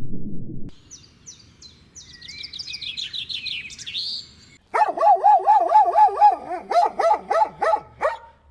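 A small bird chirps in a quick series of high, falling notes for a few seconds. Then, after a sudden change, an animal gives a loud, rapid run of short high-pitched yelps or barks, about five a second.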